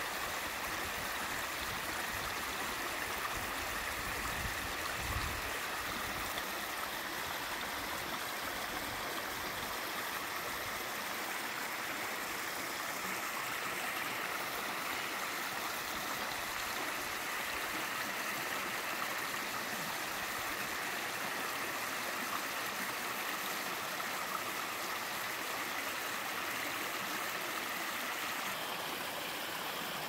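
Mountain stream spilling down a small tiered slab waterfall over rock into a pool: a steady, even rush of running water.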